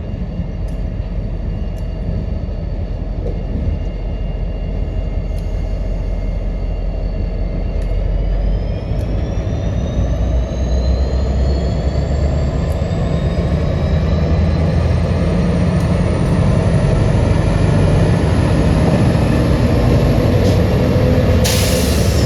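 Diesel locomotives of a CSX freight train running with a deep rumble that grows louder, while a high whine begins rising steadily in pitch about a third of the way in. A short burst of hiss comes near the end.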